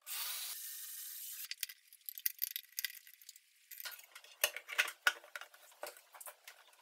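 Cordless electric screwdriver running as it drives a screw into the hard-disk enclosure, stopping after about a second and a half. Then light metal clicks and taps as the drive and its aluminium enclosure are handled and set down.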